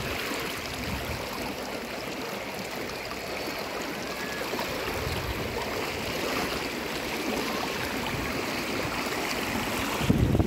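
Shallow, rocky river flowing over stones and through a small riffle: a steady rush of water. A louder low rumble comes in near the end.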